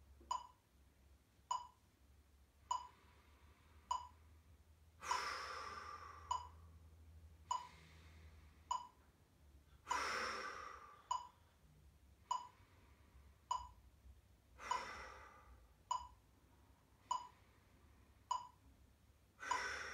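Digital metronome beeping at 50 beats per minute, a short pitched click a little over once a second. A slow, deep breath is heard about every four beats, four breaths in all.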